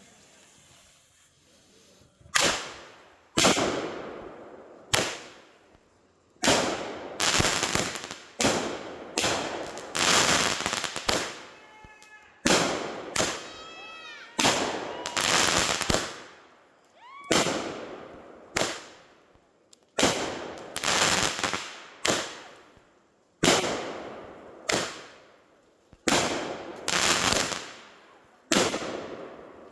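A "DEFCON Alert" consumer firework cake firing shot after shot, starting about two seconds in. Each shot is a sharp bang with a ringing tail, coming every second or so. Partway through, a few shots whistle as they go up.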